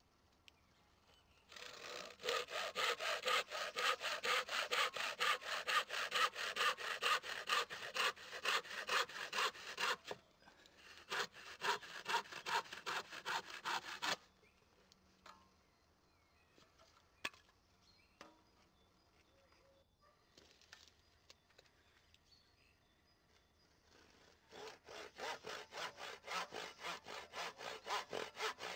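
Hand saw cutting through a strip of scrap softwood in quick, even push-pull strokes, about three a second. About halfway through the sawing stops for roughly ten seconds, with one sharp click in the pause, then starts again near the end.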